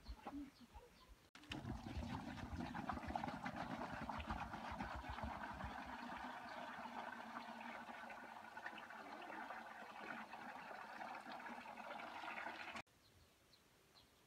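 Water pouring in a steady gush from a plastic jerrycan into a plastic basin. It starts abruptly about a second in and cuts off abruptly near the end.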